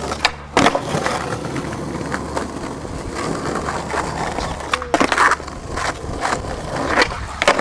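Skateboard wheels rolling steadily over asphalt, with a few sharp clacks of the board and trucks: one near the start, a couple about five seconds in, and more near the end.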